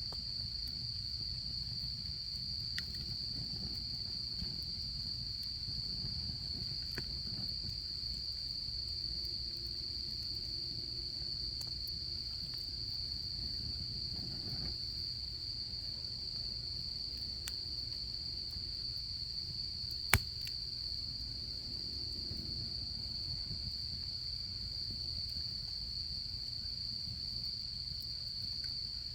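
A chorus of autumn insects trilling in one steady high tone, with a campfire crackling under it in scattered faint snaps. A single sharp, loud pop from the fire comes about two-thirds of the way through.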